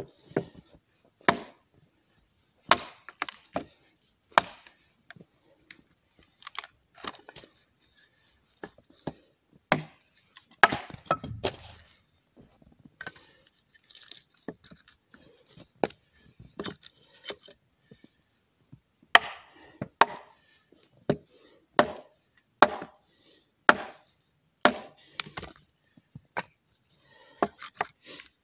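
Husqvarna carpenter axe chopping into a log, splitting off firewood sticks: sharp wooden chops at irregular intervals of about a second, with quieter handling noises between them.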